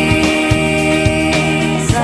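Background music: long held notes over a steady beat.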